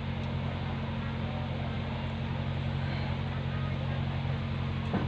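A motor running with a steady low hum under constant background noise.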